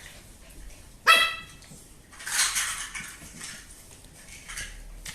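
A puppy gives one short, high-pitched bark about a second in, followed by about a second of scuffling noise.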